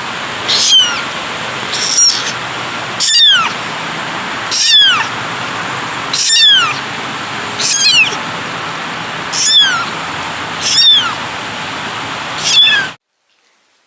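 A kitten mewing over and over, about every second and a half: thin, high-pitched cries that fall in pitch, over a steady hiss. It cuts off abruptly near the end.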